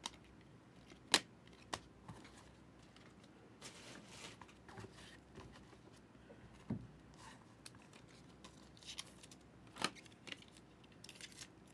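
Football trading cards being handled: faint sliding and rustling as cards are flipped through, with a few sharp clicks and taps, the loudest about a second in.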